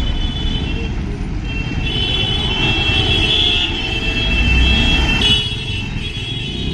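Road vehicles running, a heavy low rumble throughout, with a high horn held from about a second and a half in until past five seconds and sounding again near the end.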